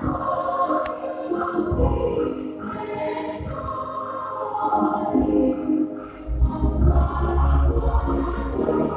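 Choir singing with musical accompaniment, in a gospel or church style; a heavy bass line comes in about six seconds in.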